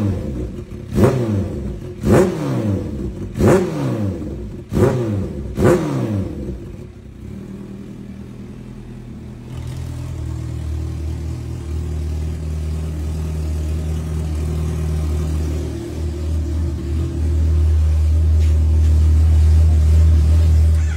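Kawasaki H2's supercharged inline-four through an aftermarket slip-on exhaust, revved in six quick throttle blips about a second apart, each falling back fast. It then settles into a steady idle that grows louder toward the end.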